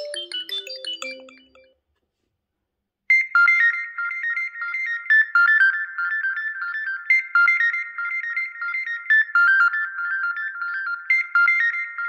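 Xiaomi Mi 11 stock ringtones. One melody fades out in the first two seconds; after a second of silence, a new bright, high-pitched chiming ringtone starts about three seconds in and repeats its short phrase.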